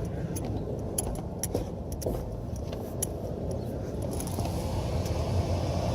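Small metal items jingling and clicking in scattered light taps over a steady low rumble.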